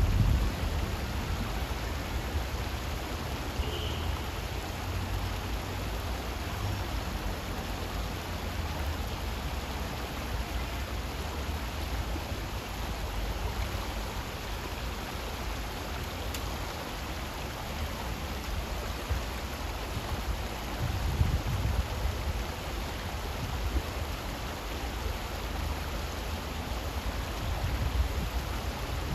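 Shallow stream water running over stones: a steady rushing, with a low rumble underneath.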